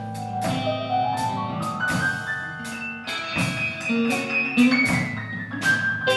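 Small band of guitar, keyboards, double bass and drums playing an instrumental break: a run of notes climbing step by step in pitch over drum hits.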